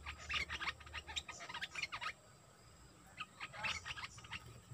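Bulbuls calling in two quick bursts of chirping notes, the first about two seconds long, the second about a second long after a short pause.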